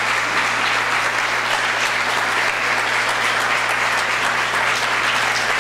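Audience applauding, a steady sustained round of clapping from a large crowd.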